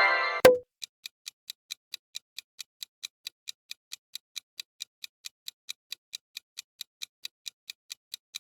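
Countdown clock sound effect ticking steadily, about four ticks a second, while the guessing time runs. Just at the start a short pitched chime ends with a sharp click about half a second in.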